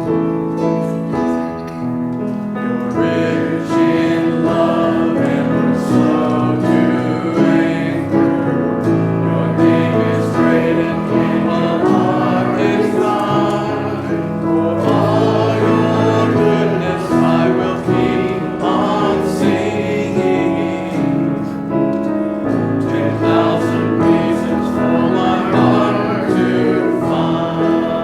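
Worship song sung by a group of voices with piano accompaniment.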